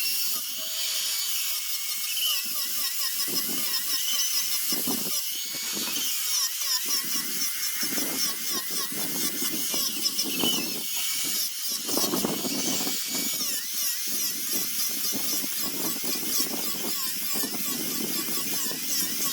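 Handheld power sanding tool running steadily with a high whine that wavers in pitch, grinding against zelkova root wood in repeated uneven strokes.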